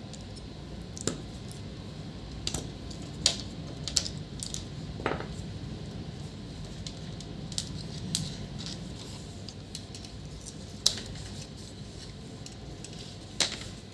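Scattered sharp metallic clicks and clinks from small metal parts and tools being handled: an aluminium plate being fitted to a broken laptop hinge. About a dozen irregular taps, the loudest a little before the two-thirds mark and near the end, over a steady low hum.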